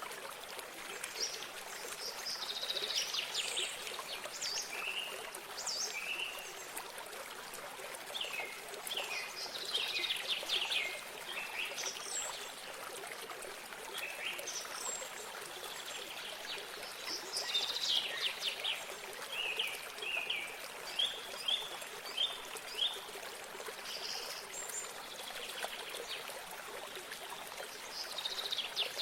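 Small stream trickling steadily, with songbirds chirping and singing over it throughout, including a quick run of short chirps about two-thirds of the way through.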